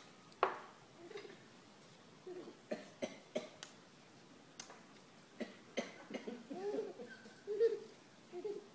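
A harsh cough about half a second in, followed by several short, sharp coughing sounds, then wavering vocal noises in the last few seconds.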